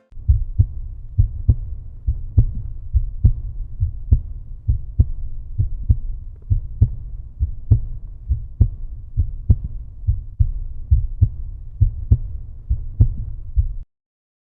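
Outro music: a deep bass line with a steady thumping beat, a strong beat a little less than once a second and lighter ones between. It cuts off suddenly near the end.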